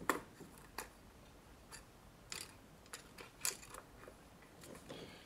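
About half a dozen small, sharp plastic clicks at uneven spacing as the plastic connector holder and rubber boot of the driver's door wiring harness are handled and pushed back.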